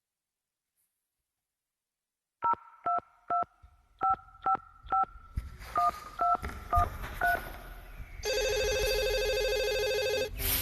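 Telephone keypad dialing: about ten short two-tone touch-tone beeps, followed by a steady buzzing ring tone lasting about two seconds.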